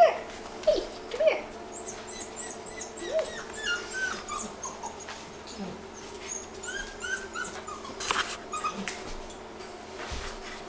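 Wheaten Terrier puppies whimpering and yipping: a few loud short cries in the first three seconds, the first the loudest, then a run of small high squeaks. A sharp knock about eight seconds in.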